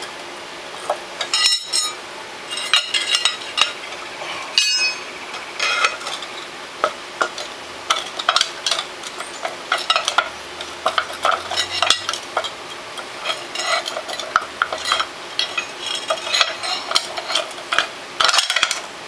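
A steel pry bar working apart the two halves of a 2008 Honda Foreman 500's rear differential case: irregular metal-on-metal scraping with a stream of light clinks and ticks. Three sharper clanks stand out, two in the first five seconds and one near the end.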